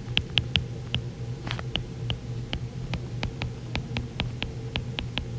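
A stylus tapping and clicking on a tablet's glass screen while words are handwritten: a quick, irregular run of small clicks, a few a second, over a low steady hum.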